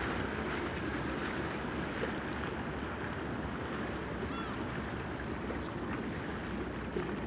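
Steady harbour ambience of wind and water noise, with a faint, brief chirp about four and a half seconds in.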